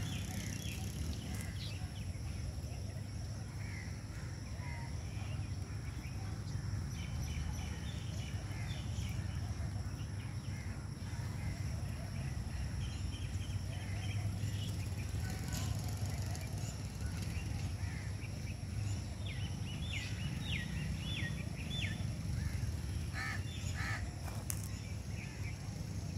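Outdoor background of a steady low rumble, with short bird calls scattered through it, several in quick runs toward the middle and near the end.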